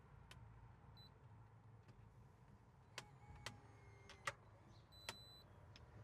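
Faint sounds of a SwitchBot Lock Pro smart lock unlocking from its fingerprint keypad. A short high beep comes about a second in, then near silence for about two seconds. Then come a few sharp clicks with a brief faint whir of the lock's motor turning the deadbolt, and another short beep near the end. The slow gap between fingerprint read and unlock is one the owner finds longer than on other locks.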